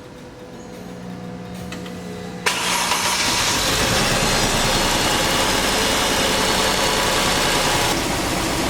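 Mercedes-Benz M272 V6 engine being cranked on the starter. It fires up suddenly about two and a half seconds in and then runs steadily, on its first start after a timing chain repair.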